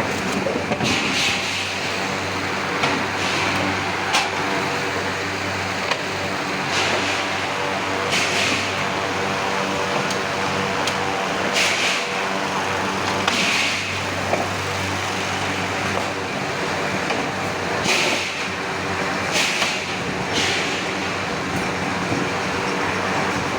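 Forging machinery running with a steady mechanical hum, broken every one to three seconds by short hissing bursts and a few faint knocks.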